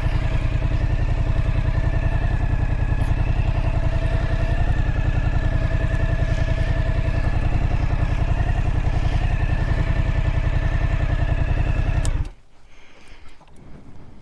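Suzuki V-Strom motorcycle's V-twin engine idling steadily, then switched off about twelve seconds in, the sound cutting off suddenly.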